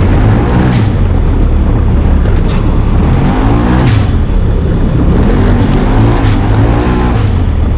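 Side-by-side UTV engine racing on a dirt track, its pitch rising and falling again and again as it is revved and backed off, over a heavy rumble. A few sharp knocks come through, about four across the stretch.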